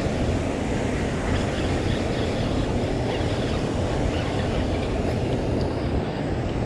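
Steady rumbling noise of rain and wind on the microphone.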